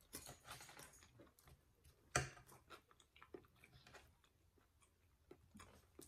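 Faint close-up chewing of baked potato and sausage casserole, with small scattered clicks of forks on plates and one sharper clink about two seconds in.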